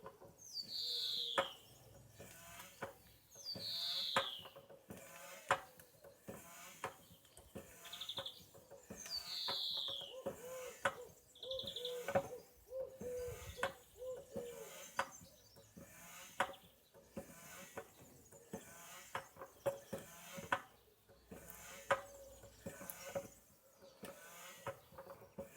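Dunlop trolley compressor, a manual foot-operated tyre pump, worked in steady strokes about every second and a half, each stroke giving a short sharp click and puff as air is pushed into a car tyre.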